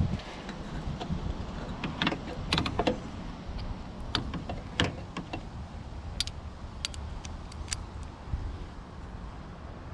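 Scattered sharp metallic clicks and knocks of hand tools working at a Jeep Wrangler JK hood latch, bunched from about two to eight seconds in, over a low steady background hum.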